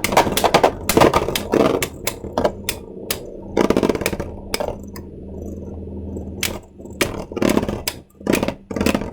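3D-printed Beyblade Burst tops clashing and skittering in a plastic stadium: a rapid, uneven run of sharp plastic clacks and scrapes.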